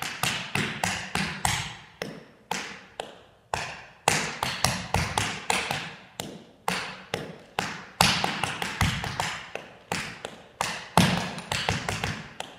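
Tap shoes striking a wooden dance floor in quick rhythmic runs of sharp taps, broken by short pauses, as a tap combination is danced.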